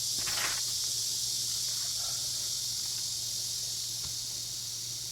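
Steady high-pitched hiss over a faint low hum, with a soft brief sound just after the start and a faint knock about four seconds in.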